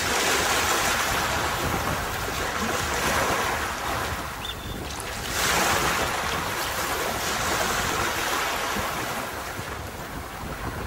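Sea waves breaking and washing onto a beach, a steady rushing surf that ebbs and then surges again with a new wave about halfway through.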